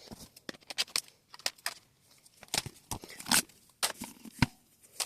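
Toy packaging being handled and opened by hand: scattered, irregular clicks, taps and crinkles of plastic and cardboard.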